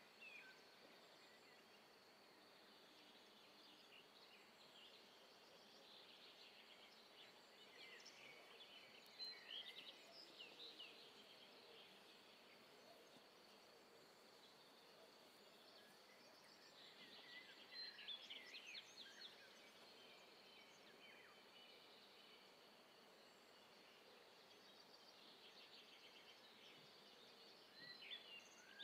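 Near silence: faint outdoor ambience with birds chirping in three short spells.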